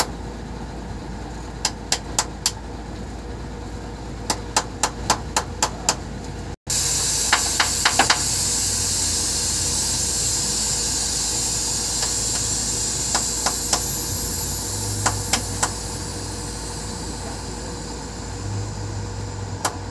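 Sharp knocks in quick runs of three to five, like tool blows on the truck during repair work, then a loud steady hiss comes in about a third of the way through, with more knocks over it.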